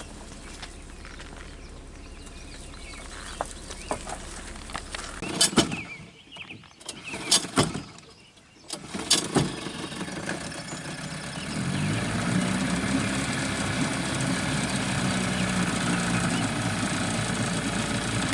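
A few sharp knocks and clatters, then a boat motor starts about halfway in and runs steadily at a low idle.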